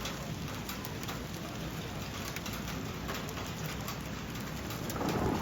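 Steady rain falling on a surface, with many separate drops ticking through it; the rain grows somewhat louder near the end.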